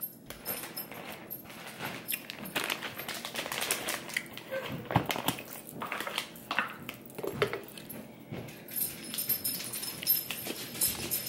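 Irregular clicks and rustling of hands-on food prep: a plastic zipper bag being handled and crinkled, and a spoon tapping and scooping.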